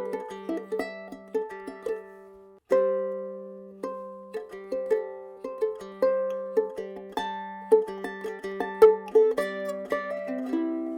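Soprano ukulele with a Sitka spruce top and pernambuco back and sides, played as an improvised fingerpicked melody over a low note; each plucked note rings and fades. The playing stops briefly about two and a half seconds in, then starts again with a strong note.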